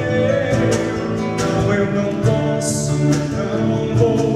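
Music: a worship song played live with acoustic guitar accompaniment, an instrumental passage between sung lines.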